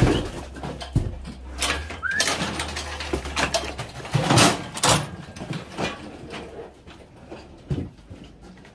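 Cattle being worked through a corral: irregular knocks and clattering, with a short rising squeak about two seconds in.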